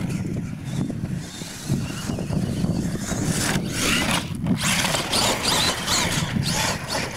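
R/C monster truck driving and revving on a dirt course: its motor whines in short rising sweeps over a steady rumble of tyres and outdoor noise.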